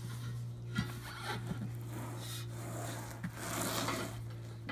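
Scraping and rubbing of a tractor tire being worked off its steel rim with a tire iron, with a few light knocks and a longer scrape near the end.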